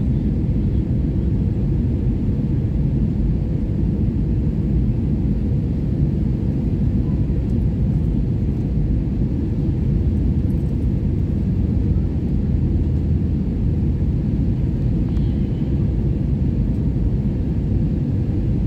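Airliner cabin noise during the landing approach: a steady low rumble of engines and airflow heard from inside the passenger cabin.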